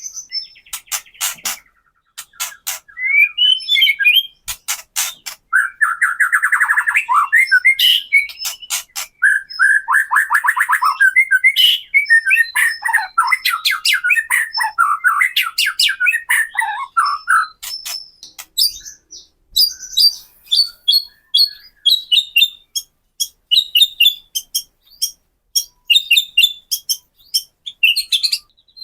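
White-rumped shama giving its agitated 'kretekan' call: sharp rattling clicks repeated throughout. Midway they are mixed with a long run of fast, dense chattering song, and toward the end with short high whistled notes.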